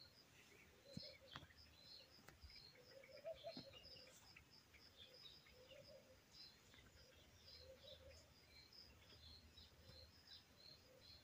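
Faint birdsong: short high chirps repeated a few times a second, with lower calls every couple of seconds.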